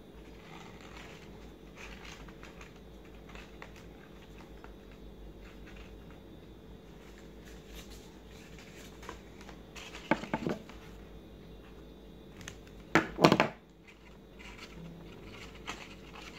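Faint rustling and light ticks of stiff paper petals being handled and pressed into place while they are glued onto a paper flower. Two short, louder sounds with a clear pitch stand out about ten and thirteen seconds in.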